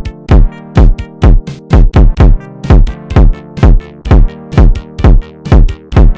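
Electronic dance music with a steady, heavy kick drum about two beats a second over held synth chords.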